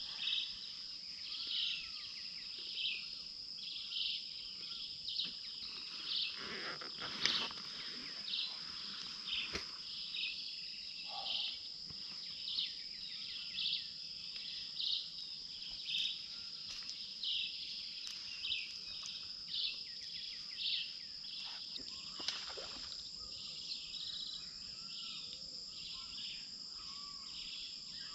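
Insects calling in a steady high trill, with a louder chirp repeating about once a second on top of it.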